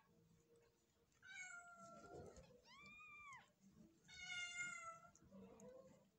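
Newborn Persian kittens mewing: three short, thin, high-pitched mews, the middle one rising and falling in pitch.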